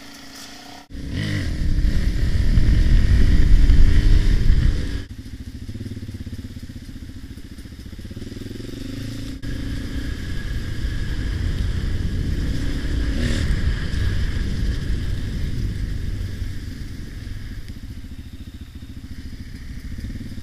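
Dirt bike engine running while riding a trail, loudest for a few seconds after a sudden start about a second in, then dropping abruptly to a steadier run that swells and eases as the throttle changes.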